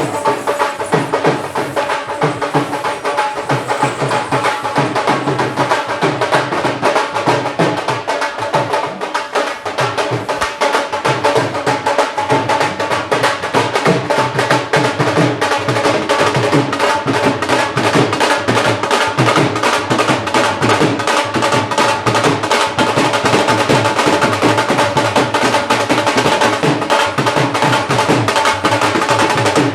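Dhol drumming: fast, dense, steady beats played without a break, over a held drone-like tone.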